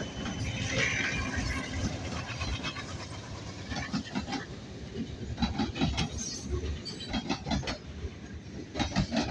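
Freight train rolling past close by: the rumble of the diesel locomotives passing, then loaded-sounding freight cars rolling by. Their wheels clack on the track, often in quick pairs as each truck crosses a rail joint.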